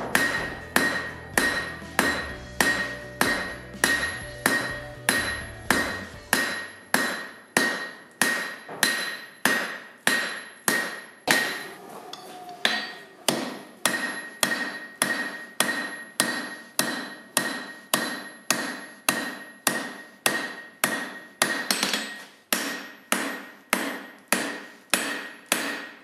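Hand hammer drawing out a red-hot steel knife tang on an anvil: steady blows about two a second, each with a bright anvil ring, with a brief pause about twelve seconds in.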